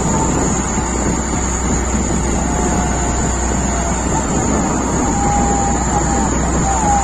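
Fishing boat's engine running steadily under way, a constant drone and hum.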